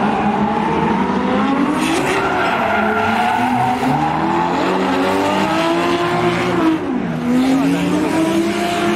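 Drift cars' engines revving hard, their pitch rising and falling, with tyres squealing. About seven seconds in the revs dip briefly, then climb again.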